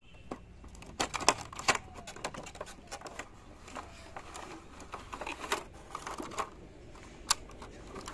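A cardboard toy box and its clear plastic blister tray being handled and slid apart, giving an irregular run of clicks, rubs and plastic crinkles. There is one sharp click about seven seconds in.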